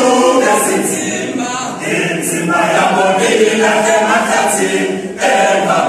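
All-male a cappella choir singing in mbube style, many voices in close harmony. It sings in phrases, with a short break about two seconds in and another near the end before the voices come back in together.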